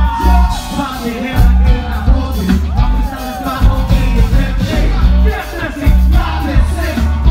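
Live hip-hop concert music through a PA: a performer's vocals into a microphone over a beat with heavy bass.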